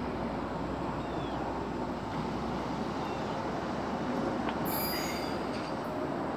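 Stadler diesel multiple-unit light rail train running away from the station, a steady engine and rolling-stock rumble. About five seconds in, a brief high-pitched wheel squeal as it takes the curve.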